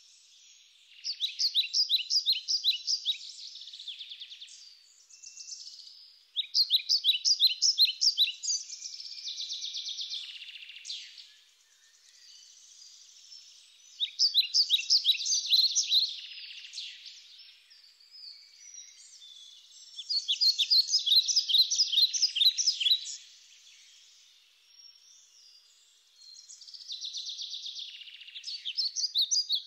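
A songbird singing five songs about six seconds apart, each a quick run of sharp repeated notes that ends in a buzzy trill.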